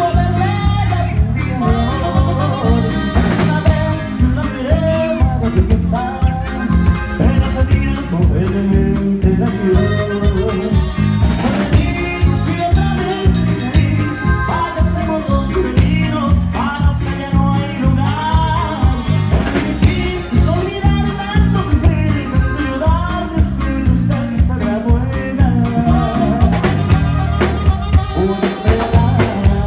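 Live norteño band playing a dance number: a lead singer over strummed twelve-string guitar, saxophone, electric bass and a drum kit keeping a steady beat.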